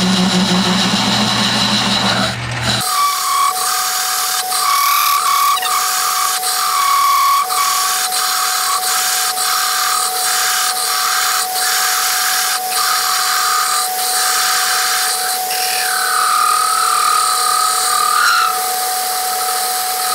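Metal lathe running with a cutting tool turning down the middle of a metal piston-valve blank, with a steady whine and sharp ticks about once a second. About three seconds in, the low hum drops out abruptly.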